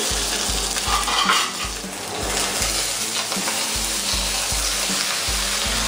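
Oil sizzling under a banana-leaf parcel of spiced fish roe (paturi) frying in a little oil in a kadai on low heat, with a brief louder scrape about a second in.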